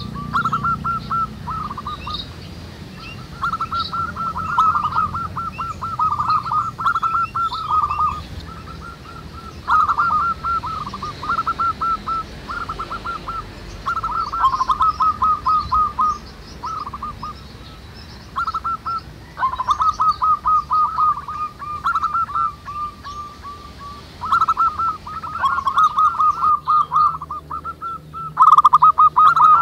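Several zebra doves cooing, one after another and overlapping: repeated phrases of quick, stuttering coo notes, each a second or two long, with faint chirps of smaller birds in the background.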